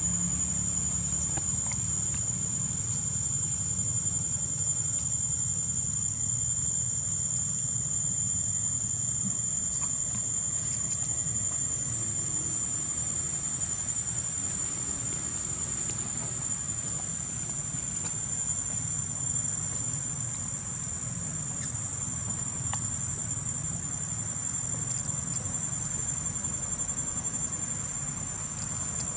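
Steady high-pitched insect drone running unbroken, over a steady low rumble.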